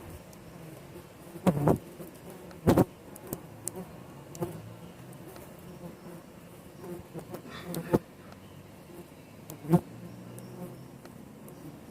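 Canudo stingless bees (Scaptotrigona) buzzing in flight, a steady hum of many foragers. Single bees pass loudly close by a few times, about a second and a half in, near three seconds in and near the end.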